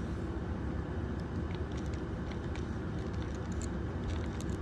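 Steady low rumble of background noise, with a few faint clicks near the end.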